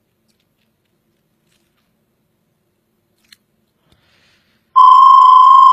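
A single steady electronic beep, held for about a second near the end: the prompt tone of an automated voice-menu system, just before its recorded greeting.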